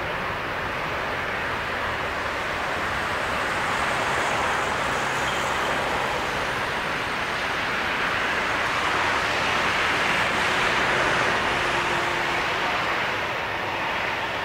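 Boeing 777-300ER's twin GE90-115B turbofans at takeoff thrust: a steady jet rush during the takeoff roll. It swells slowly to its loudest about ten seconds in.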